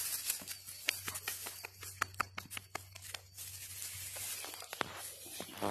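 Close rustling and crackling handling noise at the phone's microphone, with a quick run of about ten sharp clicks in the first half and a couple more near the end.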